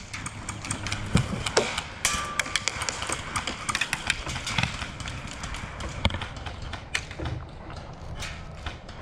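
Rapid, irregular thuds and clicks of a person running on foot, with gear knocking.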